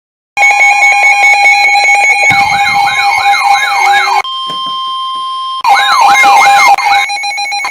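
Electronic siren tones. A rapid pulsing tone gives way to a fast yelp that sweeps upward over and over, two or three times a second. A quieter steady tone sits in the middle, then the yelp returns and the pulsing comes back near the end.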